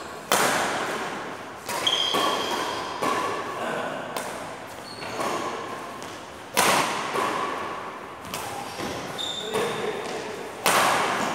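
Badminton rackets striking a shuttlecock during a doubles rally: a run of sharp hits, each echoing in the large hall, with a few brief high squeaks of shoes on the court floor between them.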